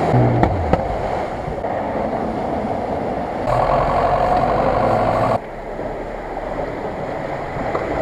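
Off-road 4x4 engines running hard as the vehicles drive through water-filled ruts, with water splashing. The sound changes abruptly twice, about three and a half and five and a half seconds in, as one clip cuts to the next.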